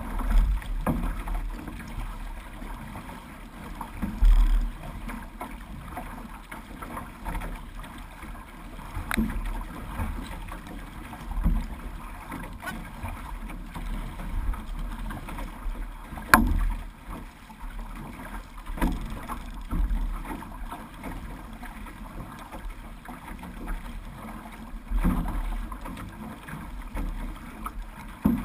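Water splashing and sloshing around a six-person outrigger canoe (OC6) under paddle, with irregular louder slaps and thumps of water against the hull every few seconds, the sharpest about two-thirds of the way through.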